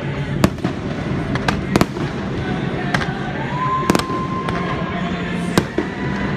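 Aerial fireworks shells launching and bursting, a string of sharp bangs at irregular intervals, some close together.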